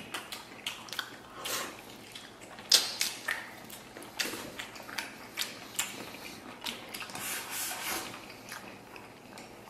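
Two people chewing and slurping mouthfuls of braised pork belly, sauerkraut and rice: wet chewing with many short smacks and sharp clicks, the loudest a single click a little under three seconds in.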